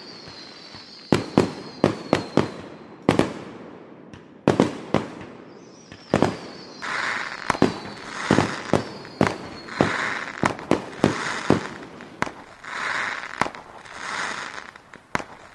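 Fireworks going off: a string of sharp bangs at uneven intervals, with two long falling whistles from whistling rockets. Over the second half come repeated short bursts of hiss between the bangs.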